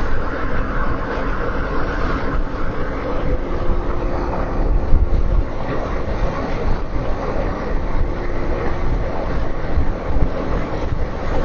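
Steady road noise inside a moving car: a low rumble with hiss above it, and a faint steady hum that comes in twice.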